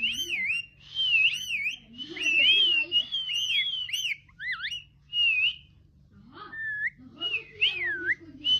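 Parrot whistling a song: short phrases of warbling whistled notes that swoop up and down in pitch, with a brief pause a little past the middle.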